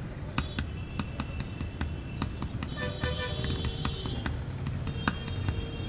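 Background music with a steady ticking beat, about three ticks a second, under held tones.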